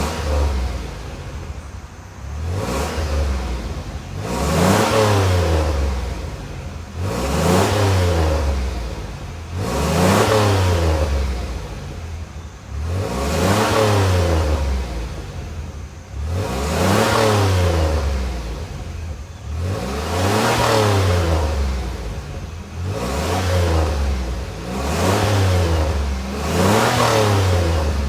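1994 Chrysler Town & Country minivan's V6 engine revved again and again, its pitch rising and falling about every three seconds, while it burns off a freshly applied Powerfoam intake cleaner and smokes from the exhaust.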